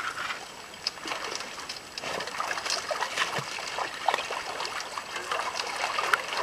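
Water sloshing and splashing in irregular bursts as a person wades through knee- to thigh-deep water.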